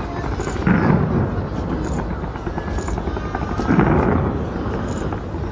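Fireworks fired from a skyscraper, heard from a distance as a steady low rumble of explosions, with two louder bangs about three seconds apart. People can be heard talking faintly.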